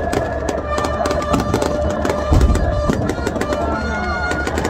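Aerial fireworks crackling and popping in quick, uneven succession, with a heavier bang about halfway, over loud music with held, droning tones.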